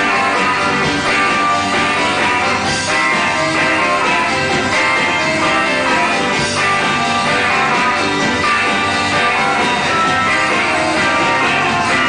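Guitar-based rock and roll music playing loudly and steadily.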